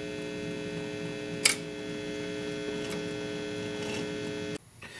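Steady electrical hum from a powered-up 1951 RCA Victor 45-EY-4 record player, with one brief click about a second and a half in. The hum cuts off suddenly near the end.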